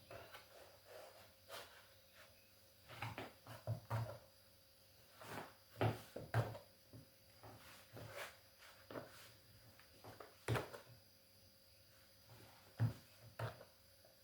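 Irregular knocks and clicks of kitchen work, as of wooden and hard items being handled and set down, with the loudest knocks about six seconds in, about ten seconds in and near the end.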